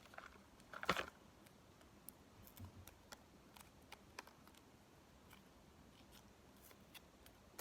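Faint handling noise of packaging being opened: a short crinkle about a second in, then scattered small clicks and taps.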